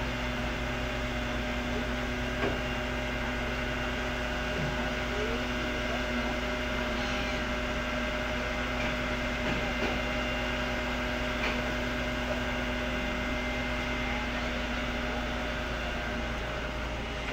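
Boom truck's engine and hydraulic crane pump running steadily: a low rumble under a hum of several steady tones, unchanging throughout.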